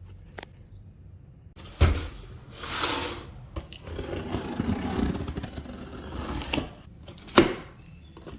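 Plastic storage bins being handled and unpacked: a knock about two seconds in, then scraping and rustling, and another sharp knock near the end.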